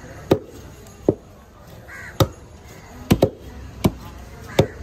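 Heavy cleaver chopping through tuna flesh into a thick wooden chopping block: about seven sharp knocks at uneven intervals, two in quick succession a little after three seconds.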